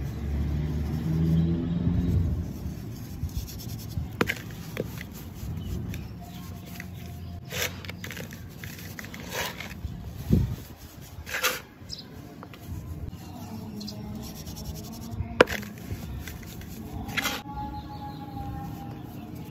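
Hands crushing and crumbling packed clumps of fine sand in a metal basin and letting it run through the fingers: a soft gritty scraping and crunching, with sharper crackles here and there as clumps break.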